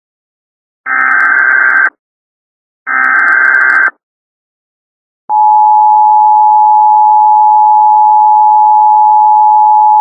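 Emergency Alert System signal: the last two one-second bursts of the SAME data header, a harsh warbling buzz, about a second apart. After a short silence, the steady two-tone EAS attention signal starts about five seconds in; it is the signal that an emergency message is about to follow.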